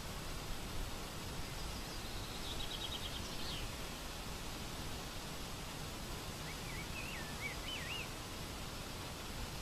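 Steady outdoor background hiss with faint songbird calls: a quick trill about three seconds in and a short warbling phrase about seven seconds in.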